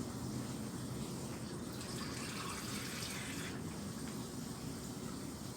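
Water being poured into a pot of simmering fish curry to thin the sauce, giving a steady splashing and trickling.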